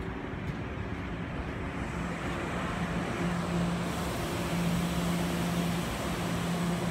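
TEMU2000 Puyuma tilting electric multiple unit rolling slowly into the platform: a steady rumble with a low electric hum that comes in about two seconds in, growing louder as the train draws alongside.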